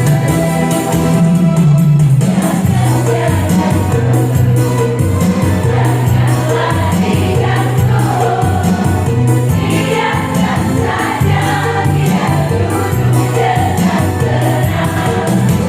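Women's choir singing over instrumental accompaniment with a steady bass line; the voices come in about two seconds in, after a short instrumental passage.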